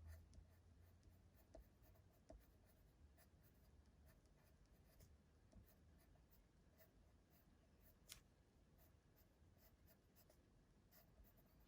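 Near silence, with faint scratching and small ticks of a watercolour pencil colouring on card stock.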